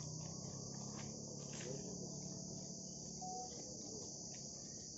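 Steady, high-pitched chorus of insects chirring.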